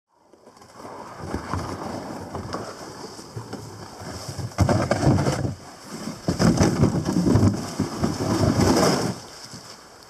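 Irregular scraping and rustling of a plastic Heritage kayak being handled on a dirt riverbank, louder about halfway through and again from about six to nine seconds in, with wind on the microphone.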